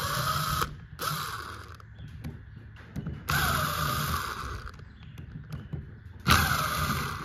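Small power tool spinning out the cam phaser cover's bolts in four short runs, the longest about a second and a half, with light ticks of handling between them.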